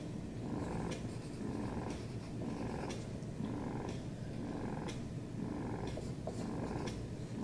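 Domestic cat purring close to the microphone, the purr swelling and easing about once a second with its breathing, with a few faint ticks.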